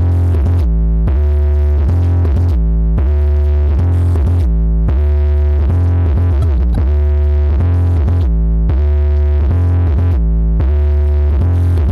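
Electronic dance music with heavy, sustained sub-bass and held synthesizer chords, played loud through a large outdoor PA speaker stack in a sound check. The treble cuts out briefly every couple of seconds.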